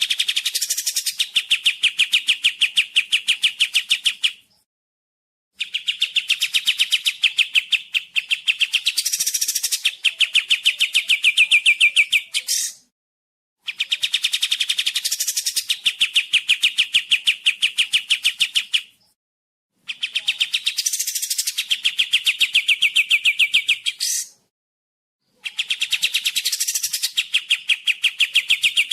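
Kapas tembak singing: a long, fast, even trill of rapid notes, repeated in bouts of about five seconds with short pauses of about a second between them.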